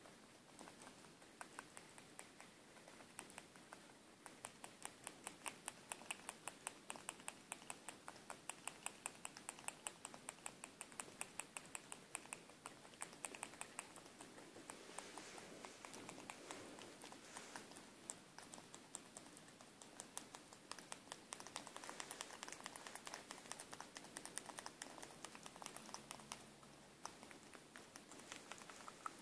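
Prairie dog licking and chewing at the tip of an oral medicine syringe: a fast run of faint, wet mouth clicks, several a second, that thins out and picks up again.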